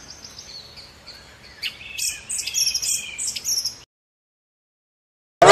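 Small birds chirping and trilling in quick, high calls, busier and louder from about two seconds in, then cutting off suddenly to silence.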